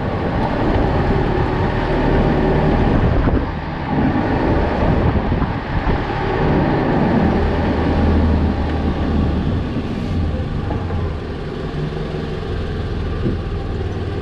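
Toyota Vanguard's 2.4-litre 2AZ-FE four-cylinder petrol engine running, a steady low hum under a continuous broad rush of vehicle noise that rises and falls slightly.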